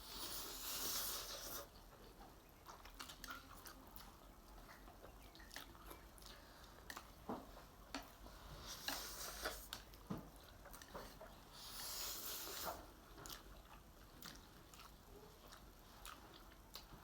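Spicy instant noodles being eaten close to the microphone: chewing and biting, with three hissy slurps about a second long and small clicks in between.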